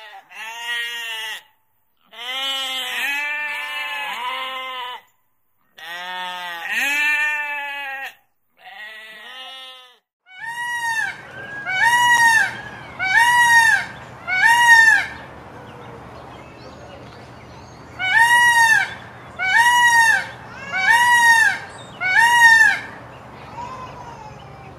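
Several sheep bleating in wavering, overlapping calls for about ten seconds. Then an Indian peafowl (peacock) calls loudly and repeatedly: short arching calls about one a second, a run of four and then, after a pause, a run of five.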